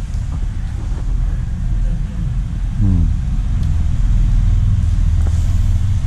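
Steady low rumble of road traffic crossing the bridge overhead.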